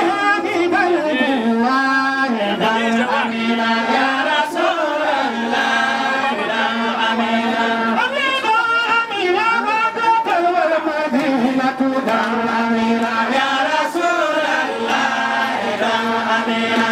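Several voices chanting a melodic devotional song together, with long held notes.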